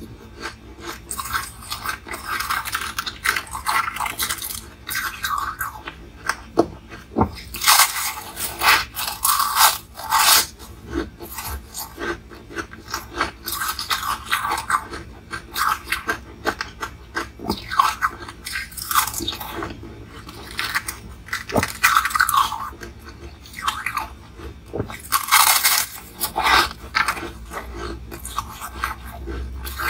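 Ice being bitten and chewed: a continuous run of sharp, irregular crunches as pieces of frozen ice crack between the teeth, coming in louder clusters with short lulls of softer chewing between them.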